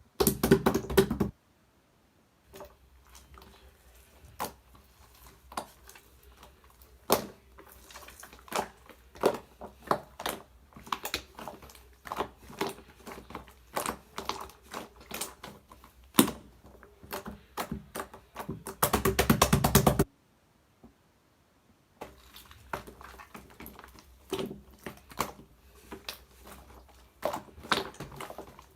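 Typing on a keyboard: irregular rapid key clicks, with two dense runs of fast typing, one at the very start and one about two-thirds of the way through, and two short pauses.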